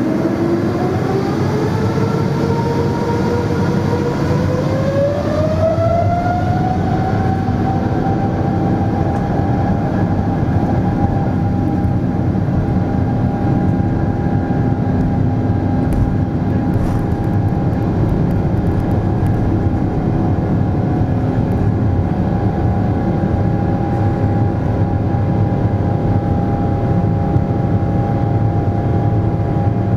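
Boeing 777-300ER's GE90-115B turbofan engines spooling up to takeoff thrust, heard from inside the cabin: a whine rises for about seven seconds, then holds steady over a loud rumble as the aircraft accelerates down the runway.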